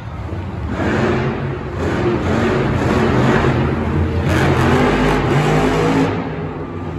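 Monster truck engine revving hard as the truck accelerates across the arena floor. It swells about a second in, the pitch shifting up and down, and eases off near the end.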